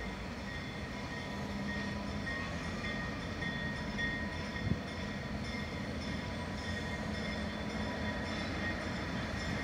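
EMD GP38-2 and GP38 diesel locomotives, each with a 16-cylinder two-stroke engine, approaching at about 10 mph, giving a low steady rumble. A single short knock sounds about halfway through.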